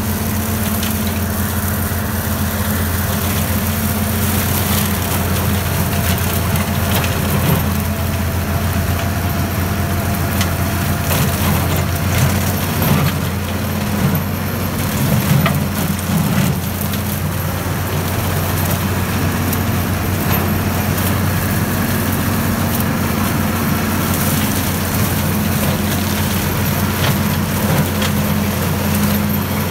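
Tractor engine running steadily under load, driving a rear-mounted forestry mulcher whose spinning rotor shreds brush and saplings, with scattered cracks of splintering wood.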